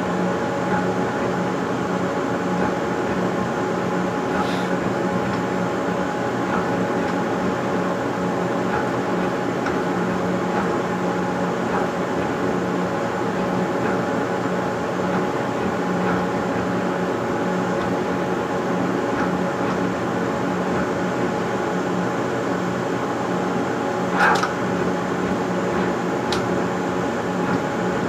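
Stepper motors of a CNC pen-drawing machine humming steadily as they drive the pen across the paper, with a brief sharper click near the end.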